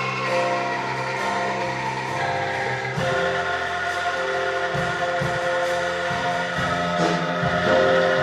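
Angklung ensemble playing: shaken bamboo tubes sound held chords, which change about three seconds in and again near the end.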